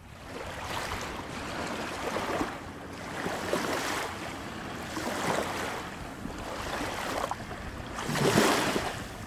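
Small waves washing and splashing against jetty rocks, surging every second or so, with the biggest splash near the end.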